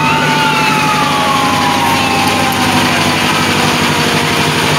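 A fire truck siren wails briefly, rising quickly and then sliding slowly down in pitch over a couple of seconds, over the steady sound of fire truck engines idling.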